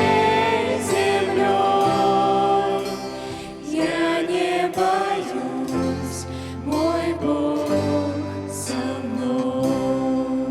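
Youth group singing a Christian hymn in Russian together, with long wavering held notes over instrumental accompaniment.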